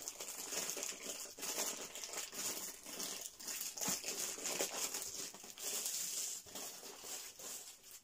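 Plastic packaging crinkling and rustling as it is handled, a steady run of small crackles that thins out slightly near the end.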